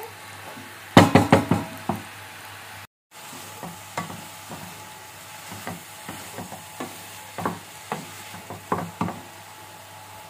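A wooden spatula stirs and scrapes grated carrots around a kadai as they roast down while their moisture cooks off, over a faint sizzle. A quick run of scraping strokes comes about a second in, followed by scattered single scrapes and taps.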